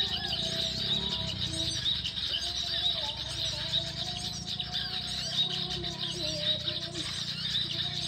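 Small songbirds chirping in a continuous, dense run of quick high calls, the kind of prenjak (prinia) calling used to lure the birds in.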